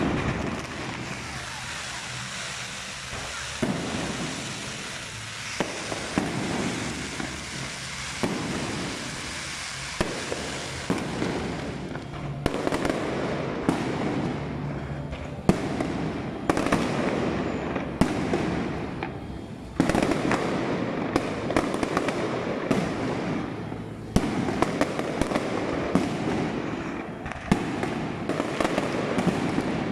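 Aerial fireworks volley: shells launching and bursting overhead, a continuous dense crackle broken by many sharp bangs, with fresh loud salvos every few seconds.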